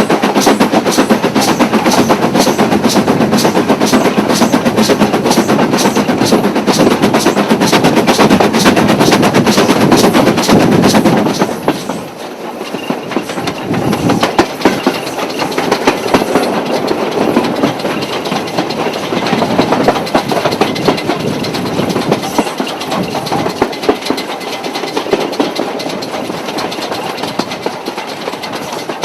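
Stanier Black 5 4-6-0 steam locomotive running hard with its train, a loud stream of rapid, even beats with wheels clattering over the rails. About twelve seconds in the sound drops sharply, leaving softer wheel clicks over rail joints that slowly fade.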